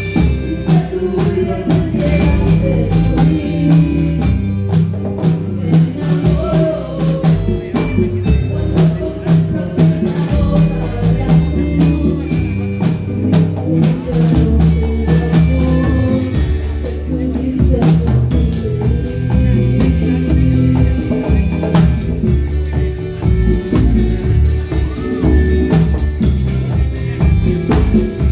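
Live band music amplified through an active line-array sound system: drum kit and electric guitar with congas over a strong bass line, playing a steady beat.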